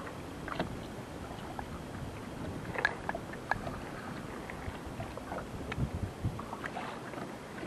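Water lapping against a small boat's hull in a light wind, with scattered light clicks and knocks.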